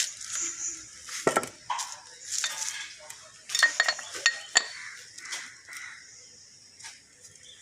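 Metal tools and parts clinking and knocking irregularly, with short ringing clanks.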